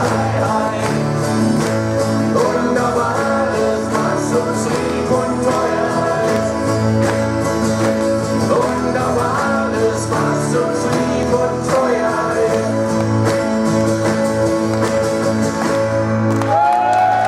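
Live band performing a song, with guitars over a steady bass and some singing.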